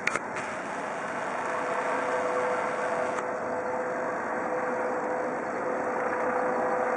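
Eurocopter EC 155 B helicopter in flight: a steady rotor and turbine noise with a steady whine, growing a little louder after about two seconds. A few sharp clicks at the very start.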